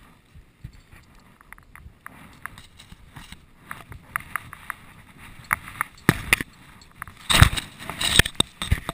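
Irregular rustling, clicks and knocks of handling right at the microphone, sparse at first and growing busier, with a loud burst of rustling about seven and a half seconds in.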